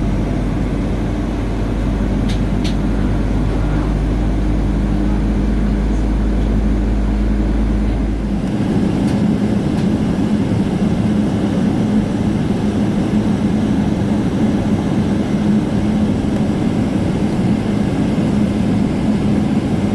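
Cabin noise inside a Boeing 777-300ER from a seat ahead of its GE90 engines: a steady hum of the engines running at idle after start, mixed with the hiss of cabin air. A deep low rumble under it stops about eight seconds in.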